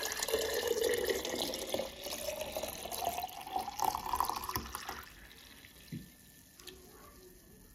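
Water poured in a thin stream into a glass jar, the pitch of the pour rising steadily as the jar fills. The pour stops about five seconds in, leaving a few faint drips.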